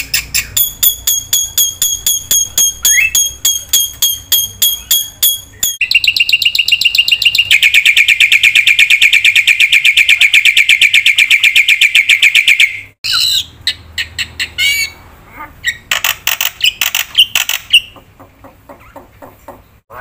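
Black-winged myna (jalak putih) singing in fast series of repeated chirps, the pattern switching abruptly twice, about six and thirteen seconds in. The loudest part is a dense, steady run of rapid chirps in the middle, and it thins to sparser calls near the end.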